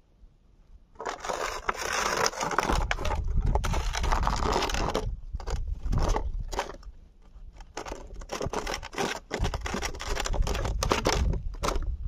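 A cat eating close to the microphone: crunching, scraping and quick clicks of chewing. It starts about a second in and eases off briefly around the middle.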